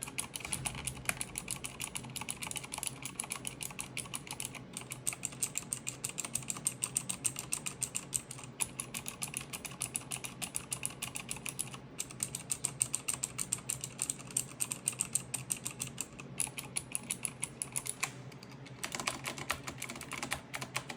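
Fast continuous typing on a mechanical keyboard fitted with thick PBT doubleshot Razer Green keycaps, a dense run of key clicks with a couple of brief pauses.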